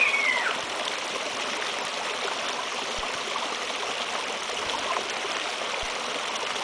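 Hose-fed worm sprinkler spraying water, a steady hiss and patter of spray on the lawn. A brief high-pitched squeal of a voice right at the start.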